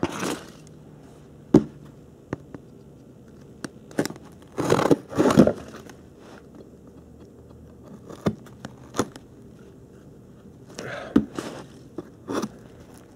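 Packaging being handled: scattered knocks and clicks, with short scraping, crunching rustles about five seconds in and again near the end, from the cardboard box and foam packing peanuts.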